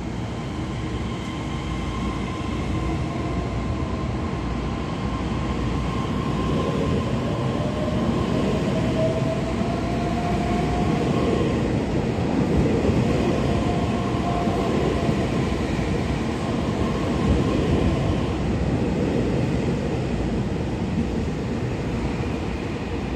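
EMU3000 electric multiple unit accelerating out of an underground station platform: wheels running on the rails and the electric traction motors whining, one tone rising in pitch as the train picks up speed. The noise builds toward the middle as the cars pass, then eases as the tail end goes by near the end.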